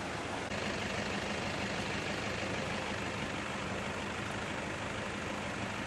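Floodwater rushing across a road as a steady hiss, with an engine idling low underneath.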